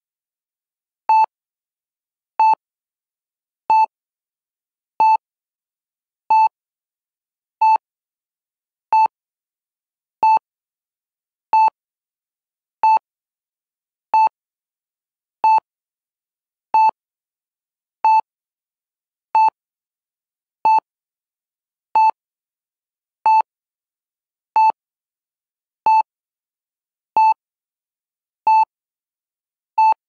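Heart monitor (EKG) sound effect: short electronic beeps of one pitch, evenly spaced about one every 1.3 seconds, with silence between them.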